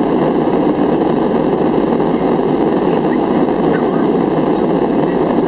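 Steady cabin noise of a Boeing 737-400 in its climb after takeoff, its CFM56-3 turbofan engines running under the constant rush of air past the fuselage, heard from a window seat over the wing.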